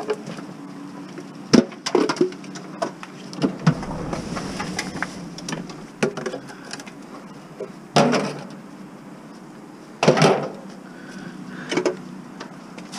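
Handling noise from a steel bucket being picked up: a few sharp knocks early on, then two longer scraping, rustling bursts later, over a steady low hum.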